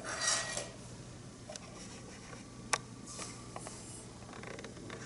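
A short gritty hiss of dry sugar being handled in a measuring cup, followed by light clicks and one sharp tap of a kitchen utensil.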